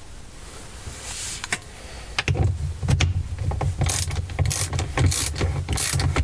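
Socket ratchet undoing the bolts that hold a gear-change mechanism: clicking in strokes about twice a second, starting about two seconds in.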